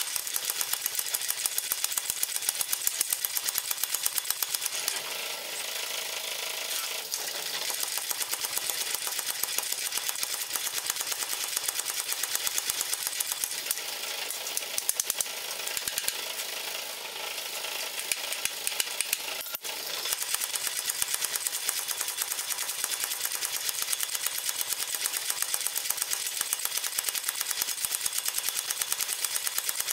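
Power hammer pounding a red-hot flat steel bar with rapid, evenly spaced blows, drawing the bar out longer and thinner. The blows are lighter through the middle stretch and drop out briefly about twenty seconds in before resuming.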